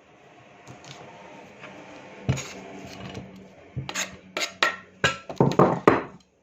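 A kitchen knife cutting mango on a wooden cutting board. There are a few seconds of steady scraping and slicing, then a quick run of about nine chops from a little under four seconds in.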